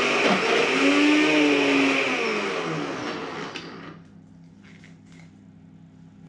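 Electric countertop blender pureeing cooked broccoli and wine, its motor whirring with a wavering pitch as the load shifts, then winding down and stopping about three to four seconds in. A couple of faint clatters follow as the jug is lifted off the base.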